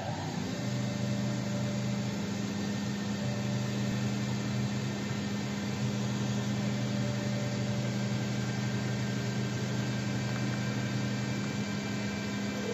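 CNC wood lathe running with its spindle turning a wooden bowl blank while cutting it: a steady motor hum over a constant hiss.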